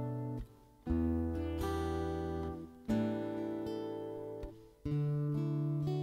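Acoustic guitar played alone, slowly: a new chord is struck about every two seconds and left to ring and fade, with a brief hush as each chord changes.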